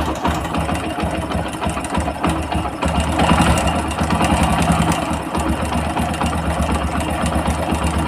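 Hero HF Deluxe motorcycle's single-cylinder four-stroke engine idling with a clattering rattle, the sign of a badly loose timing chain. It gets a little louder about three seconds in and settles back about two seconds later.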